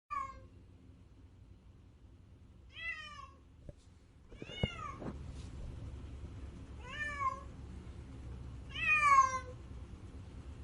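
A domestic cat crying, five plaintive meows about two seconds apart, each rising then falling in pitch; the last is the loudest. A low steady hum lies underneath.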